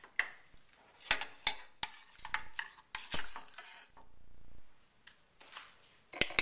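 A metal spoon clinking and knocking against a stainless steel saucepan: a string of sharp, irregular clinks, with a louder pair near the end.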